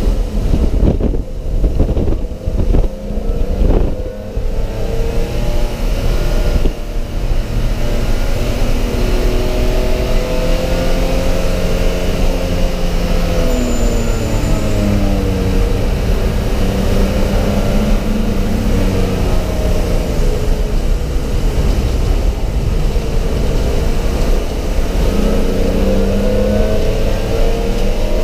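Race car engine heard from inside the stripped cockpit, its pitch rising and falling as it accelerates and slows through the corners, over steady road and wind noise. The sound is choppy for the first few seconds.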